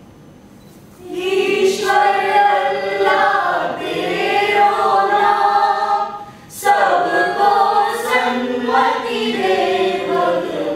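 Mixed male and female voices singing together in unison, a group song of held, sung lines. It begins about a second in and breaks briefly a little past the middle.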